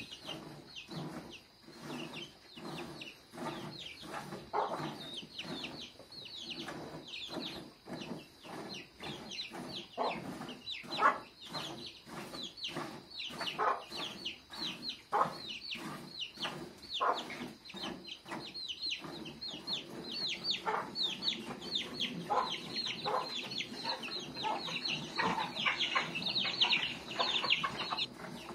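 Cow being milked by hand: a steady rhythm of milk squirts, about two a second. Over them run many short, high, falling chirps from birds, thickest near the end.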